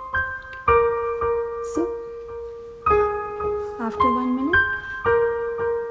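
Background piano music: slow sustained notes, with a new chord struck about every two seconds.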